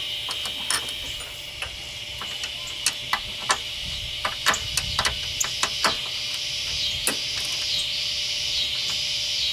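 Sharp, irregular metallic clicks and taps of a hand tool working a 10 mm bolt, about a dozen over the first six seconds. Behind them a steady high insect chorus, which starts pulsing evenly in the second half.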